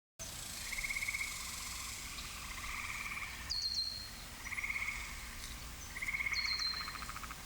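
Frogs calling outdoors: short pulsed trills, each about half a second long, repeating every second or two. A short falling whistle cuts in twice, about three and a half seconds in and again past six seconds.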